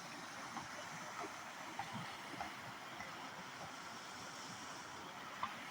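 Steady rushing of a waterfall's water: an even hiss with no rhythm, broken only by a few faint clicks.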